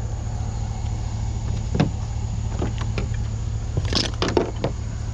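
A vehicle engine idling with a steady low hum, with scattered light clicks and knocks from scrap being handled, most of them near the end.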